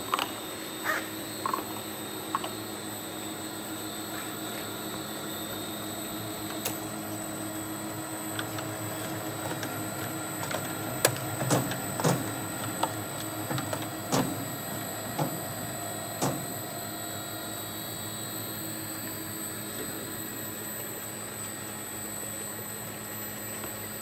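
Automatic bottle filling and capping line running: a steady machine hum with a faint high whine, and irregular clicks and clacks of bottles and capping heads, busiest in the middle.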